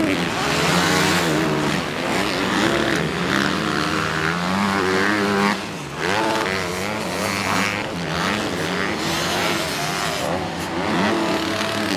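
Honda motocross bike engine revving hard, its pitch rising and falling again and again as the throttle opens and closes, with a brief drop about six seconds in.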